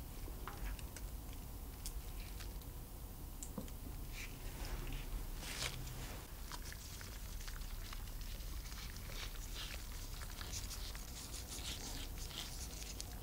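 Quiet handling of food in a round metal baking pan: soft scattered taps and slides of a silicone spatula on soft cooked potato slices, then shredded mozzarella pattering down onto them in small, closely spaced clicks near the end.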